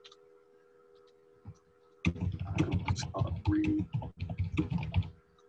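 Quiet for about two seconds, then rapid typing on a computer keyboard: a dense run of quick key clicks and thumps lasting about three seconds.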